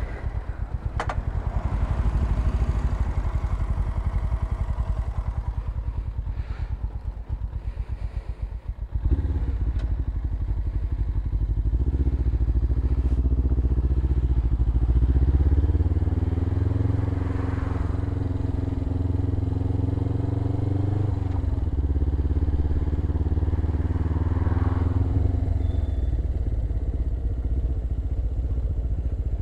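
Suzuki GS500E parallel-twin engine with a Leo Vince exhaust, pulsing at low revs, then louder from about nine seconds in. The revs climb, hold steady, drop sharply about two-thirds of the way through and pick up again.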